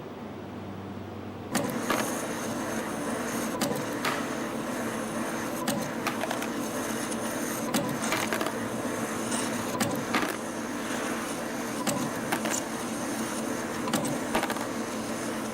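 CNC spring coiling machine (YHM CF-320) running, coiling 0.8 mm wire into compression springs. A low hum gives way suddenly, about a second and a half in, to a steady mechanical whirr with frequent sharp clicks.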